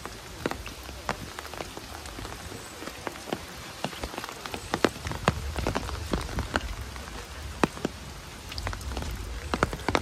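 Rain falling, a steady patter with many single drops ticking sharply at irregular moments.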